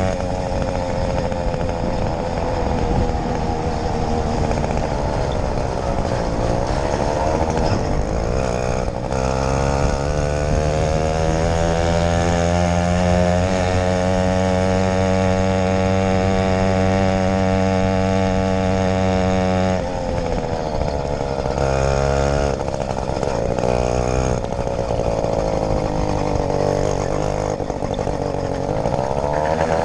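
80cc two-stroke motorized bicycle engine running under way, its revs rising and falling, then held nearly steady for about ten seconds. About two-thirds through the throttle is cut and the revs drop suddenly, then rise and fall again and climb near the end.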